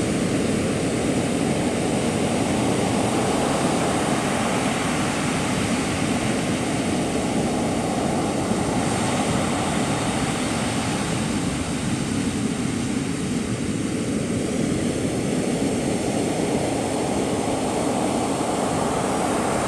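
Steady roar of sea surf breaking on the shore, continuous and loud.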